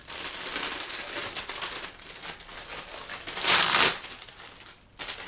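Plastic packaging crinkling as a new motorcycle helmet visor is unwrapped, with a louder rustle about three and a half seconds in as the wrapping is tossed aside.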